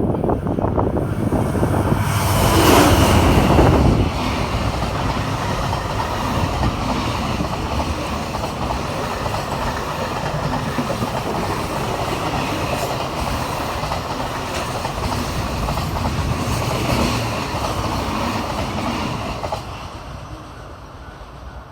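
Freight train passing close by: loudest about two to four seconds in, then a long steady rumble and clatter of wagons on the rails, which falls away near the end.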